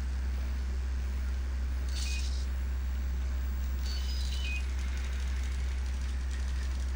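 Small servo motors in a self-balancing robot's arms whirring in two short bursts, about two and four seconds in, as the arms reposition. Under them runs a steady low hum.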